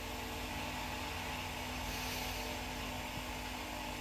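Small electric fan running with a steady whir and a faint steady hum.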